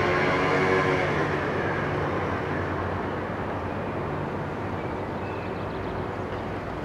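A vehicle passing by, its engine note falling slightly and fading over the first couple of seconds, leaving a steady low traffic rumble.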